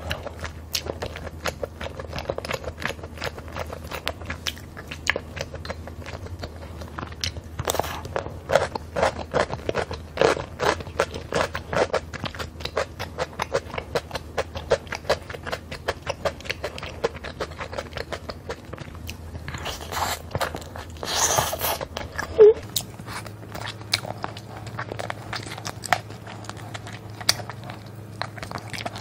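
Close-miked mukbang eating sounds: wet chewing, biting and smacking of saucy spicy braised chicken and rice, in many short clicks. Near the end she is pulling meat off a chicken bone. One louder burst of noise comes about three-quarters of the way through.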